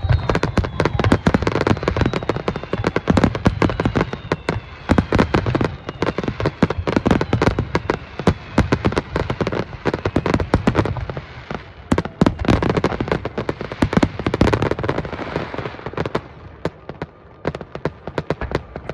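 Fireworks display: a dense barrage of aerial shell bursts and crackle, many reports a second, with a faint falling whistle in the first few seconds. The barrage thins out near the end.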